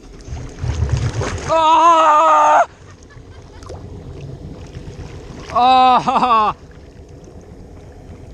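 Two drawn-out yells from a person, one about a second and a half in with a wavering pitch and another near six seconds that falls in pitch. Under them is low sloshing and splashing of lake water around a floating wakeboarder.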